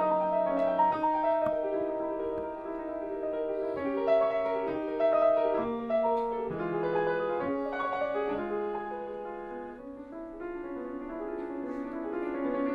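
Solo piano playing a slow, flowing piece with held, overlapping notes; it softens about ten seconds in and then builds again.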